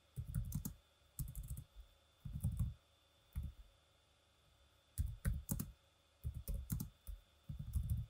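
Typing on a computer keyboard: short runs of keystrokes, with a pause of about a second midway.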